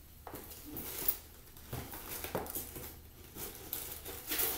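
Lace-up boots shifting and stepping on a tile floor: a handful of scattered knocks and scuffs.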